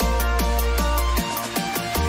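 Electronic background music with a fast, steady beat and a deep bass held in long notes.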